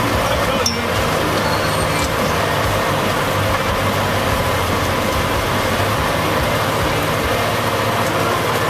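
Fire engine running steadily: a loud, even engine and pump drone with no change in pitch.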